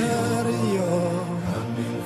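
Music with singing voices holding long, slowly gliding notes.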